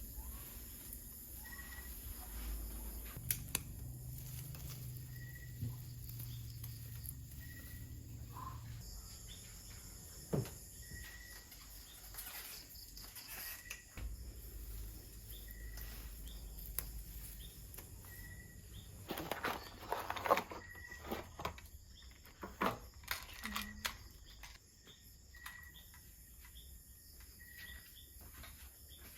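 Rural background ambience with a short high chirp repeating about every second and a half, a low hum in the first part, and scattered clicks. A cluster of louder rustles and knocks comes about two-thirds of the way through.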